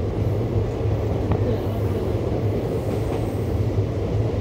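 LHB passenger coach of the Nilgiri Express running along the track, heard from the open coach door: a steady low noise of wheels on rails and the moving coach.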